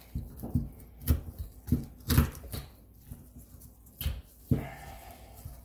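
Tin snips crunching through a bass's backbone near the tail: a series of sharp cracks, the loudest a little past two seconds in and two more near four and a half seconds.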